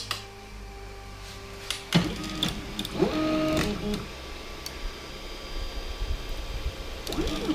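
Anet A8 3D printer's stepper motors moving the print head. They whine, the pitch sliding up and down as they speed up and slow down, in one stretch about two seconds in and again near the end. A couple of clicks come from the printer's control knob near the start.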